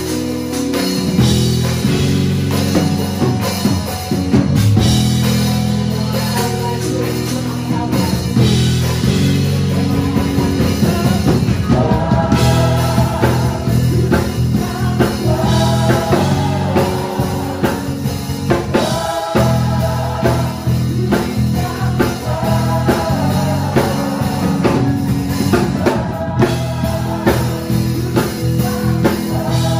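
A song with a drum kit and bass playing a steady beat; a singing voice comes in about twelve seconds in.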